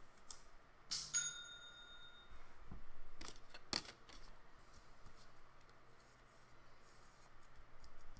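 Trading cards and plastic card sleeves being handled: soft rustling and small plastic clicks, with a sharp click about a second in that is followed by a short bell-like ding, and another sharp click near the middle.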